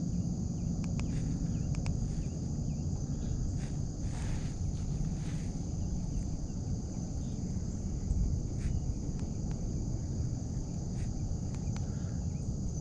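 Steady high insect chorus over a continuous low rumble, with a few faint clicks.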